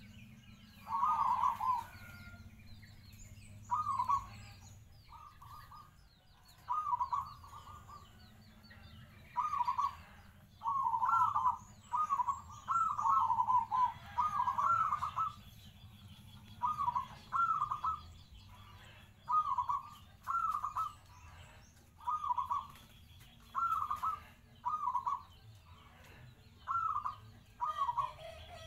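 Zebra dove (perkutut) cooing: short trilling coo phrases repeated every second or two, running together in a longer string around the middle. Faint high chirps of other small birds in the background.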